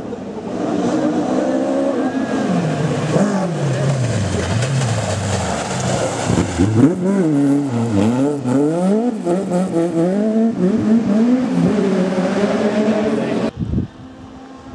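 Mk2 Ford Escort rally car's engine revving hard on a gravel stage, its pitch rising and falling through gear changes and lifts as it slides through a corner. The engine sound cuts off abruptly near the end.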